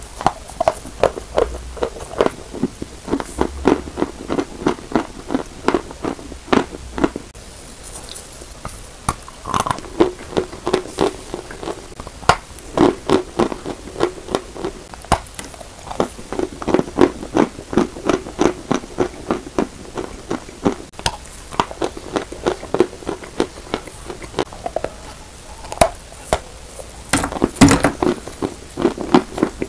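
A person biting chunks off a carved block of dry chalk and chewing them: a fast run of crunches, several a second, with a louder cluster of bites near the end.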